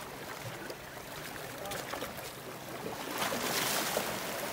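Sea water washing against the rocky shore, with a louder surge of water about three seconds in.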